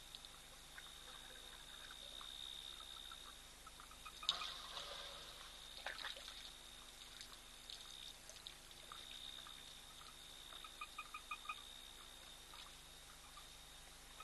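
African elephant drinking: faint water pouring and splashing as trunkfuls of water go into its mouth, loudest about four seconds in and again at six seconds. Near the end a frog calls in a quick run of evenly spaced pulses.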